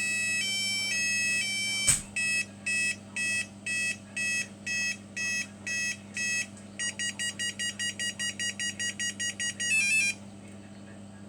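Wireless burglar alarm sounding an electronic two-tone warble, then, after a click about two seconds in, beeping about twice a second, speeding up to about five beeps a second and stopping near the end as the system arms.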